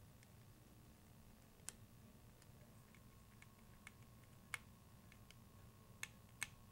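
Faint, scattered light clicks of a small Phillips screwdriver and the plastic tail case of an RC helicopter being handled, about five ticks over near silence.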